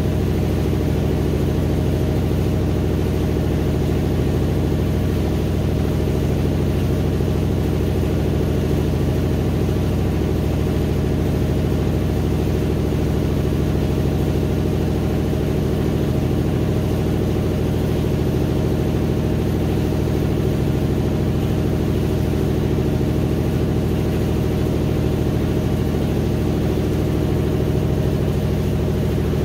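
GE GTW720BSN0WS top-load washer running near the end of its Quick Wash cycle: a loud, steady motor hum that does not change.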